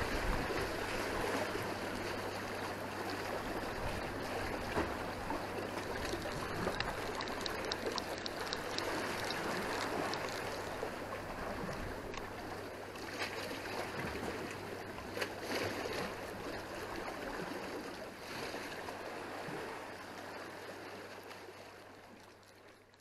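Sea water sloshing and splashing against concrete tetrapod blocks of a breakwater: a steady wash that fades out near the end.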